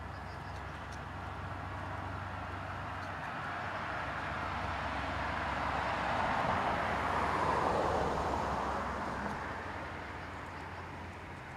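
A vehicle passing by: a noise that swells to its loudest about seven to eight seconds in, then fades away.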